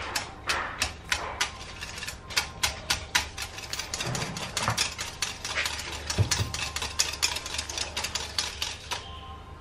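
Wire whisk clicking rapidly against a ceramic bowl while beating butter to break it up, about five clicks a second, stopping near the end.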